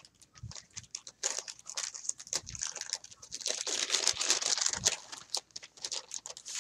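Printed paper wrapping crinkling and rustling as a rolled-up package is unrolled and unfolded by hand: quick, irregular crackles, densest and loudest from about three to five seconds in.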